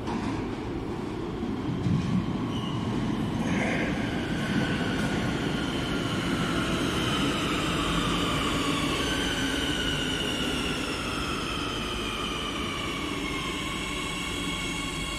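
Madrid Metro Serie 8000 train pulling into an underground station and slowing. Its electric drive whines in several tones that fall steadily in pitch as it brakes, over a steady rumble of wheels on the rails.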